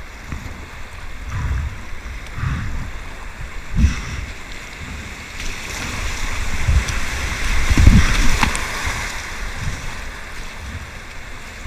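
Whitewater rapid rushing around a kayak as it is paddled through the waves, with repeated low thumps. The rush of water swells to its loudest a little past the middle.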